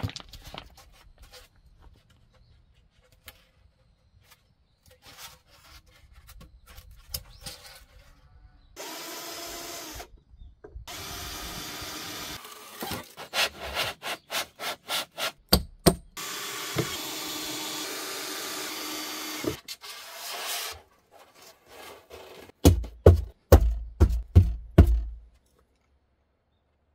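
Work on EPS foam insulation board: rubbing and handling, then stretches of a cordless drill running, a run of rhythmic sawing strokes about halfway through, and a series of heavy low thumps near the end.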